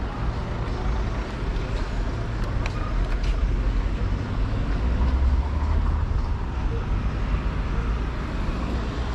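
City street traffic: cars running and passing, a steady low rumble that swells about halfway through.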